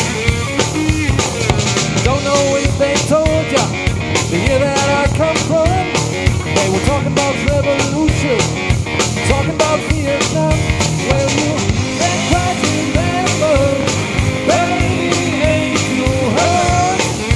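Live rock band playing an instrumental passage: electric guitar carrying a melodic lead line that glides and bends in pitch, over electric bass and a drum kit.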